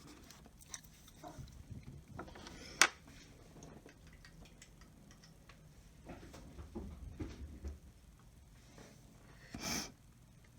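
Quiet desk handling sounds from pencil and paper: faint scratches and light taps, with one sharp tap about three seconds in and a short sniff near the end.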